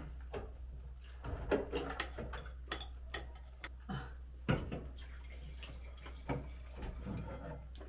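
Red wine poured from a glass bottle into a wine glass in the second half, with scattered clinks and taps of cutlery and tableware.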